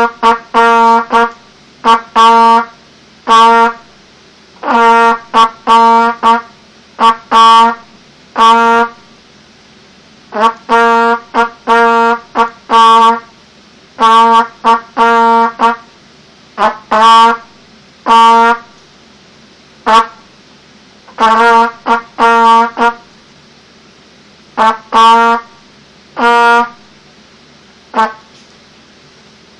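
Mendini budget trumpet playing Morse code: short and longer notes all on one repeated pitch, sounded in groups with pauses between them, spelling out a word.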